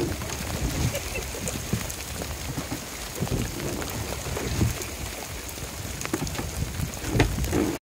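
Heavy rain falling on the sea and on an open rowing boat: a dense hiss full of sharp drop hits, with irregular low rumbles and a few louder knocks.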